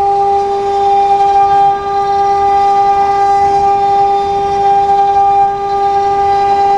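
CNC wood router's spindle running at speed while its bit mills a pocket into a wooden board: a steady, high-pitched whine over the hiss of cutting.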